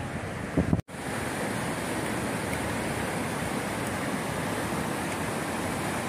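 River water rushing steadily over a weir and under a footbridge. About a second in there is a brief bump and a sudden dropout, after which the rush carries on evenly.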